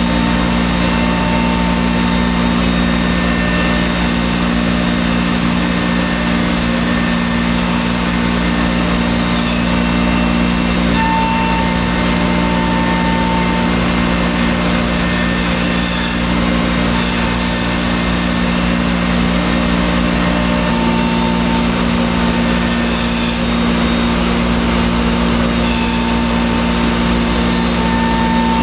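Thermwood M-90 five-axis CNC router spindle running and its cutter routing into stacked MDF: a loud, steady machine noise with a continuous low hum and a higher whine that comes and goes several times as the cut changes.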